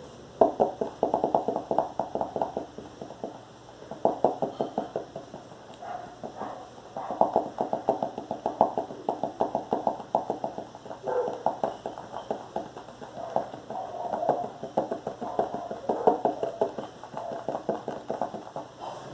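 Fingers tapping rapidly on a notebook, in bursts of a second or two of quick knocks with short pauses between them.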